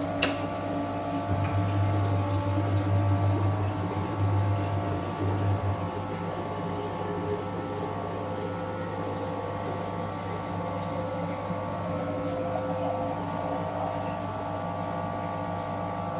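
Stovetop moka pot on a gas burner hissing and gurgling as the coffee comes up at the end of brewing, over a steady hum. A single sharp click comes just after the start.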